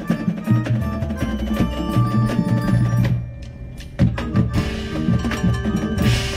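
High school marching band playing its field show, with held notes over a pulsing low beat. The band drops back about three seconds in, then comes in again with a sharp hit about a second later.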